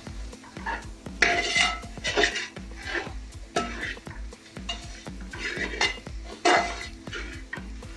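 A metal spatula scraping and knocking against a large metal uruli in repeated, irregular strokes, a few of them ringing briefly, as dry spice powders are stirred into fried onions. Background music plays underneath.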